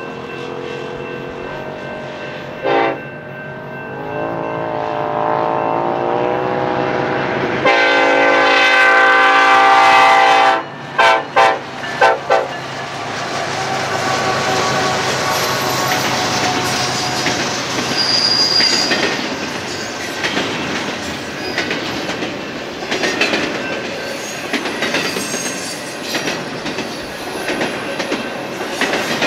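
Union Pacific freight locomotive's air horn sounding for a grade crossing: a short blast, longer blasts that grow loud, then four quick short blasts. After that, double-stack intermodal cars roll past with a steady rumble and clickety-clack, and a brief high wheel squeal near the middle.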